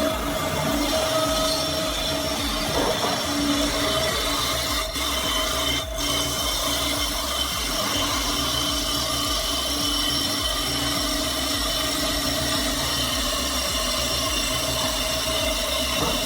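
Power saw cutting wood, running steadily with a constant whine.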